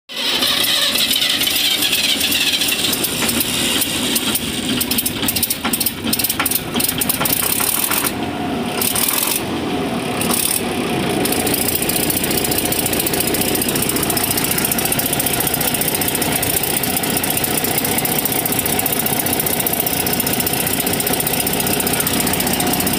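Combine harvester's inline diesel engine starting up, running rough and uneven for about the first ten seconds, then settling into a steady idle.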